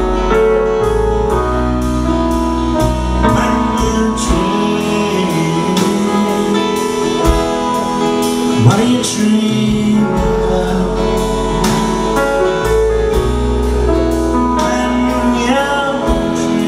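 Live band playing a song passage without sung words: piano, acoustic guitar, upright bass and drums.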